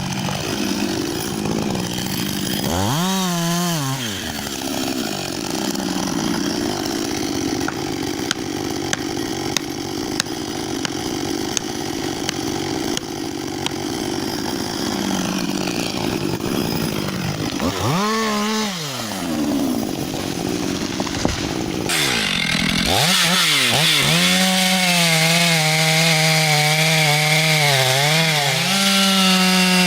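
Two-stroke chainsaw cutting wood, its engine note rising and falling sharply twice as the throttle is opened and let off. About two thirds of the way through the sound changes abruptly to a chainsaw running at high revs, its pitch dipping and recovering under load in the cut.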